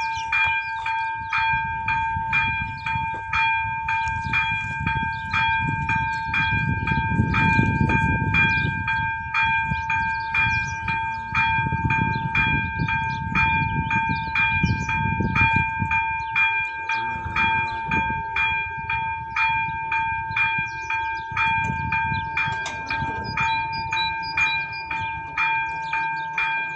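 Electronic ZV-02 warning bell of a Czech AŽD 71 level-crossing signal ringing, a bright electronic ding repeating about twice a second, warning that a train is approaching as the barriers begin to lower.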